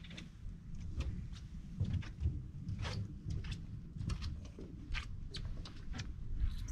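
Wind rumbling on the microphone, with scattered light clicks and knocks throughout.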